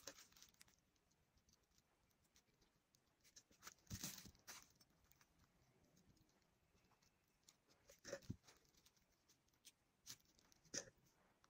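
Near silence broken by faint handling noises: short rustles and light taps of a glue-coated glass bottle being turned by gloved hands on a plastic bag. They come about four seconds in, again about eight seconds in, and near the end.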